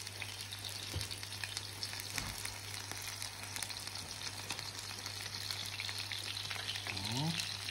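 Zander fillets wrapped in potato strands frying in hot neutral oil and butter in a pan: a steady sizzle full of fine crackling.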